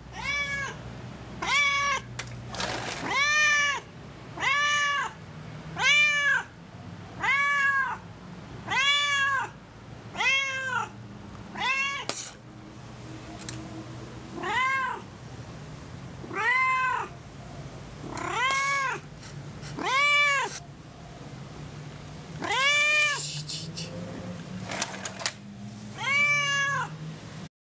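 A cat meowing over and over, about one meow every one and a half seconds, each call rising then falling in pitch.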